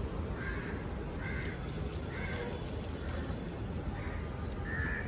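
A crow cawing repeatedly: about five short caws, roughly one a second with a brief pause midway.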